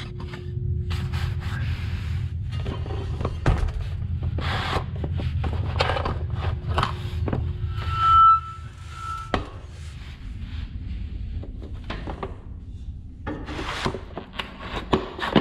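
A steel bolt-on trailer hitch being shifted and slid on stacked plastic leveling blocks: scraping and rubbing with repeated knocks, and a brief high squeak about eight seconds in.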